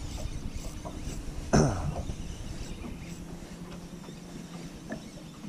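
Wind noise on the microphone with a low steady hum beneath it on a boat, and one short vocal sound from a person, sudden and falling in pitch, about a second and a half in.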